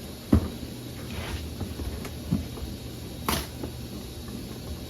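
Handling noise from a stapled parts package being pulled open: a sharp knock about a third of a second in, a softer one past two seconds and another a little after three seconds, over a steady low hum.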